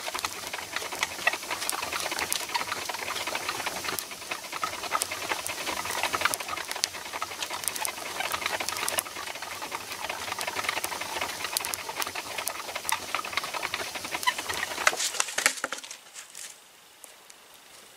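Wood fire crackling and popping inside a clay kiln's firebox, a dense irregular crackle over a soft hiss. Near the end it drops to a much quieter, sparser crackle.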